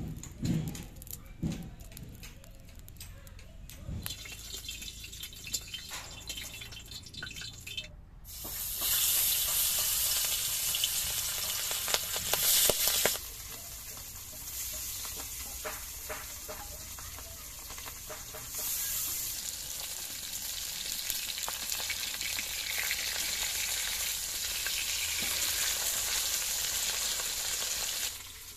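Turmeric-coated pabda fish pieces sizzling in hot oil in a kadai. The sizzle starts suddenly about eight seconds in as the pieces go into the oil, and then runs loud and steady.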